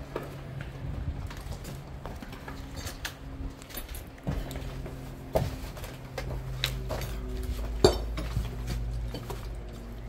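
Footsteps crunching over rubble and broken glass, with scattered clinks and knocks, the sharpest about eight seconds in.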